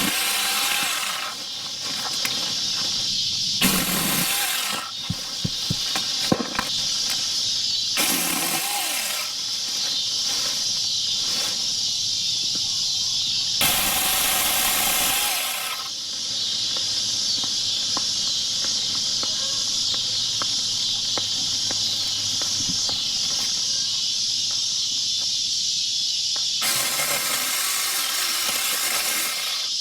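Cicadas droning steadily in a high, even buzz, with several louder noisy stretches of one to three seconds and a few sharp clicks laid over it.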